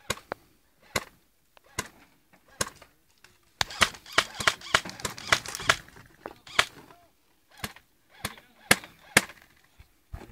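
Airsoft guns firing: single sharp shots about once a second, a rapid flurry of shots for about two seconds near the middle, then more single shots.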